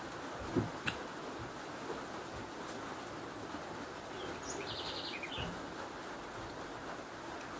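Quiet eating sounds: fingers picking and peeling shrimp from a seafood boil, with a few soft clicks and thuds, over a steady background hiss. A brief high chirp comes about halfway through.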